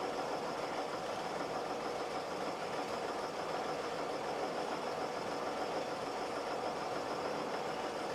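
International D1310 truck's engine idling steadily on its own, its idle evened out after the mixtures were retuned, while it is still warming up from a dead cold start.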